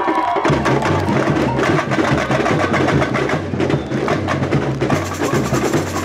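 Samba bateria playing: deep surdo bass drums with dense, rhythmic snare and wooden-toned percussion strokes over them.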